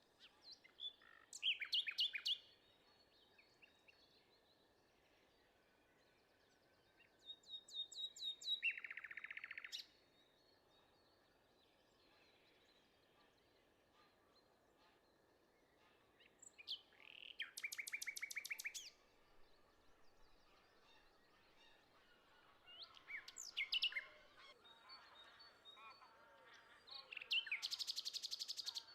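A songbird singing the same kind of song five times. Each phrase lasts two to three seconds and is made of a few high notes that run into a fast trill, with pauses of several seconds between songs.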